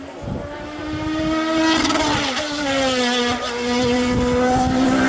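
Sport-prototype race car's engine climbing at speed, getting louder as it approaches. The engine note drops about two seconds in as the car slows into a hairpin, then holds steady through the bend.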